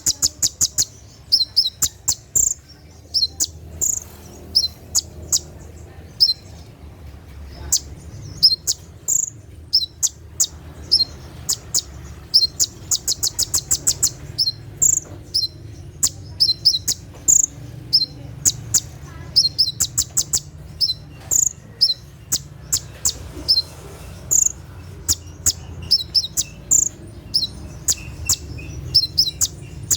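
Olive-backed sunbird (konin) singing its rapid burst song: short, high-pitched chirps and sharp whistled notes in quick succession, with a fast run of rapid notes a little before halfway, over a steady low hum.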